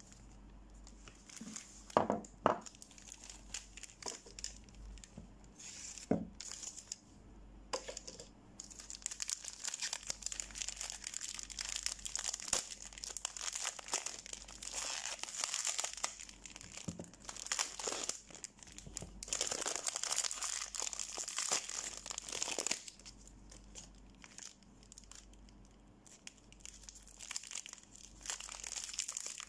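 Plastic and paper soap wrappers being crinkled and torn open by hand, with a few sharp knocks in the first few seconds. The crinkling grows dense and loud through the middle, eases off, then picks up again near the end.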